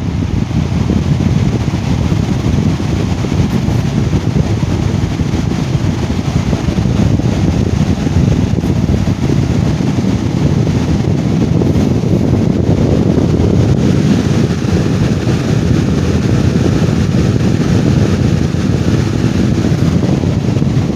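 Lasko Cool Colors 20-inch box fan running, its plastic blades making a loud, steady rush of air with a low, buffeting rumble. The fan has a balance problem, which the owner suspects comes from the blades not being centred on the hub.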